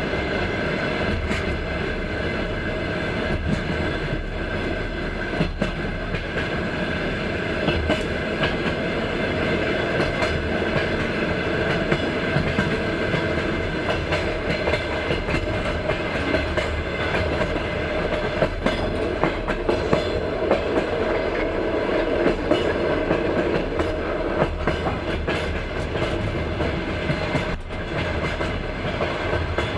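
Passenger train's wheels running on the rails: a steady rumble with short knocks coming through repeatedly, the clickety-clack of wheels over rail joints.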